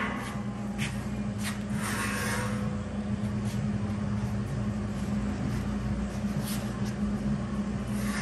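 Welded square-tube steel platform frame being carried and positioned, giving a few light metal knocks and scrapes over a steady low hum.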